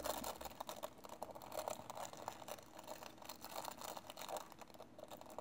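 Quiet crinkling and clicking of a small plastic packet being opened and handled to take out an airsoft hop-up rubber.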